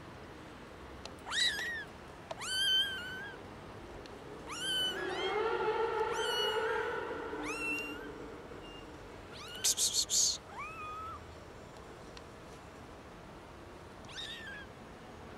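Young kittens meowing loudly and repeatedly: about eight high, rising mews spread through, with a longer, lower-pitched drawn-out cry in the middle and a quick run of four short shrill squeaks about two-thirds of the way in.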